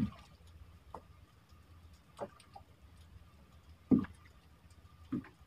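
Dull knocks and thumps inside a small fishing boat as a caught fish and the fishing line are handled: about five irregularly spaced, the loudest at the start and about four seconds in.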